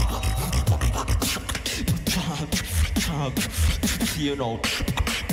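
A beatboxer performing live into a microphone: quick, rhythmic drum-like clicks and snares over a heavy bass line, with pitched vocal sounds sliding up and down about three seconds in.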